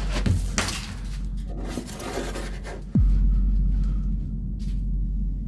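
Bare feet scuffing and rasping across a gritty concrete floor over a steady low hum. About three seconds in a deep hit drops in pitch and a louder low drone carries on.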